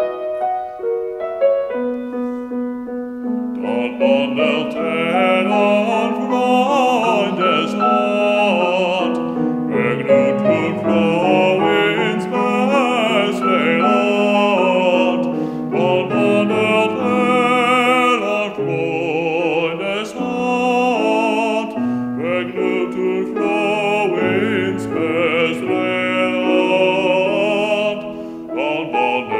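Classical male voice singing with vibrato, accompanied by piano. The piano plays alone for the first few seconds, then the voice enters about four seconds in and sings several phrases with short breaths between them, stopping briefly near the end while the piano continues.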